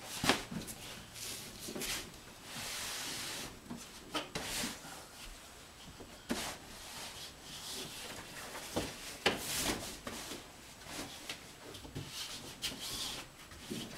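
Rustling, rubbing and light knocks of belongings being handled and packed, with a longer rustle about two and a half seconds in.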